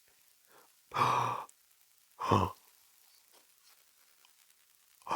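A man's two loud, voiced sighs or gasps, about a second apart, each lasting about half a second.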